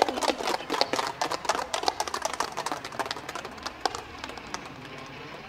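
Scattered hand clapping from a small group of people, dying away over about four seconds.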